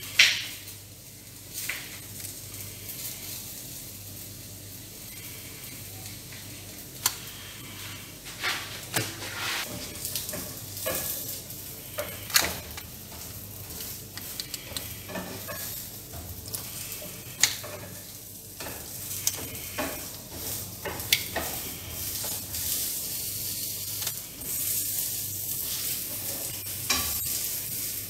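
Hands working a raw crab over a plastic sheet, prising off its shell and clearing out the insides: irregular wet crackling with scattered sharper clicks and snaps.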